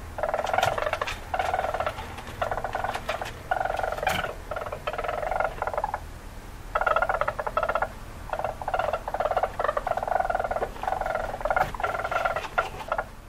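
Weasel calling in a run of rapid, pulsing trills, each burst about half a second to a second and a half long, with short breaks between them.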